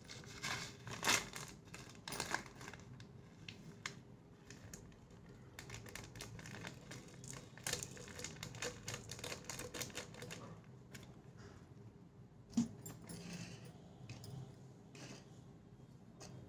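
Fenugreek seeds poured from a plastic packet into a glass jar: a rapid rattle of small clicks as the seeds hit the glass, thinning out after about ten seconds. A couple of sharper knocks stand out, one about a second in and one near the three-quarter mark.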